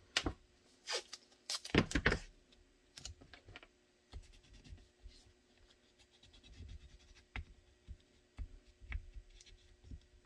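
Blue painter's tape and a pointed tool worked by hand over a plastic gun mold: a cluster of sharp crackles and clicks in the first couple of seconds as tape is handled, then softer scratching and tapping as the tape is pressed down.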